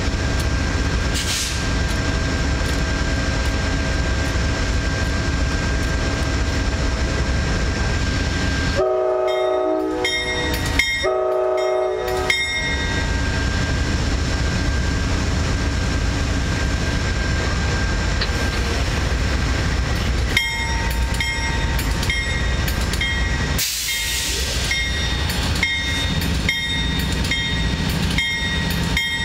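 Amtrak GE P42DC diesel locomotive standing at the platform with its engine running steadily. About nine seconds in, its horn sounds two blasts of about a second and a half each, the two-blast signal that the train is about to proceed. From about twenty seconds in, a bell rings in even strokes, about two a second.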